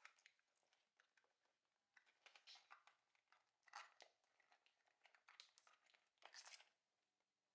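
Faint rustling and scraping of a zippered leather camera case being unzipped and pulled off a camera, in several short bursts.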